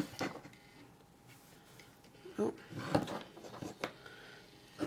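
A few scattered light clicks and knocks, the loudest about two and a half and three seconds in, as a bench power supply is switched on and a small 3D-printed stepper-motor ball pump is handled.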